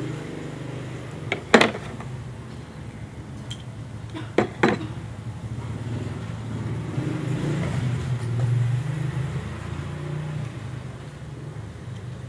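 Sharp metal clicks of pliers against a brass mainspring barrel being worked by hand: one about a second and a half in, then two close together about four and a half seconds in, over a steady low hum.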